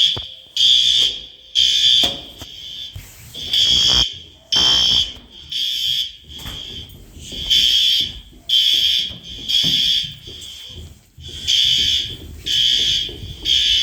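Building fire alarm sounding: a loud, high-pitched beep repeating in groups of three with a short pause between groups, the temporal-three evacuation signal.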